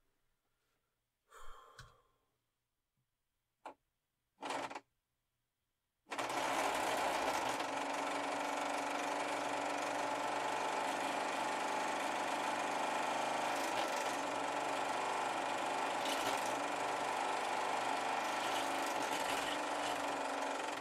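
Drill motor of a DIY magnetic stirrer, spinning a hard-drive magnet under a tub of water. After a couple of short bursts it starts abruptly about six seconds in and runs steadily at a speed set by its knob, then cuts off near the end.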